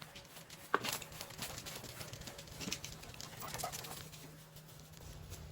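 A dog moving about, with light scattered taps and clicks and one sharper click about three-quarters of a second in.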